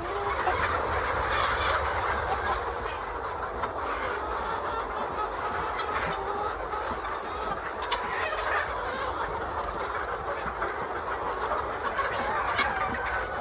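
A flock of chickens clucking and calling together, many overlapping short calls forming a steady, continuous chatter.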